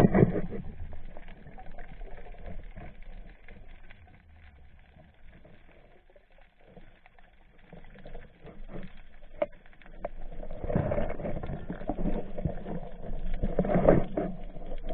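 Muffled underwater noise picked up by a diver's camera: water rushing and scattered knocks while a speared yellow jack struggles on the spear line. It fades to a faint hiss in the middle, with a few sharp clicks, then swells again for the last few seconds.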